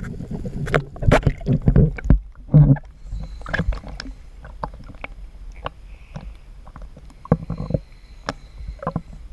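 Choppy sea water splashing and slapping against a camera housing bobbing at the ocean surface, with irregular knocks and muffled gurgles as the lens dips in and out of the water. Loudest and most turbulent in the first three seconds, then calmer sloshing with scattered knocks.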